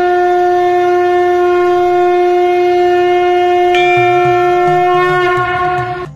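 A conch shell (sangu) blown in one long, steady note that stops sharply near the end. A brighter edge comes into the tone about two-thirds of the way through.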